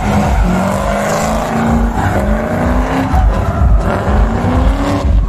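Motorcycle engine accelerating hard through the gears, its pitch rising and dropping back at each upshift, about two seconds in and again about three seconds in.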